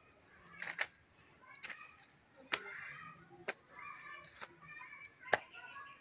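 Rustling of dry leaves and undergrowth, with six or seven sharp cracks spread through it, roughly one a second.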